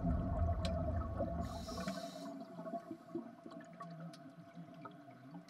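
Underwater ambience: a low rumble of moving water that stops abruptly about two seconds in, leaving a faint steady hum with scattered small clicks.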